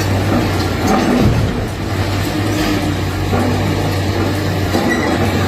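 A heavy machine's engine running steadily, a low drone with rattling, rumbling noise over it.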